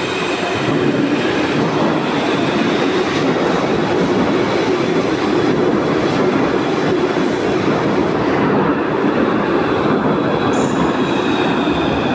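Santiago Metro AS-02 train running, heard from on board: a steady rumble of wheels on rail with a thin high squeal above it. Short high squeaks come about 3 seconds in, again near 7 seconds and once more near 11 seconds.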